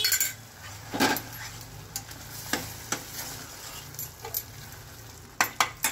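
Steel ladle stirring paneer cubes into thick masala in a stainless steel pan: irregular knocks and scrapes of metal on the pan, over a faint sizzle. Near the end comes a quick run of three knocks.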